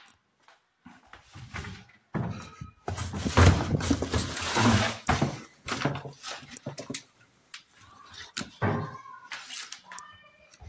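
Cardboard box and its newspaper packing rustling and scraping as the box is handled and carried, loudest in the middle.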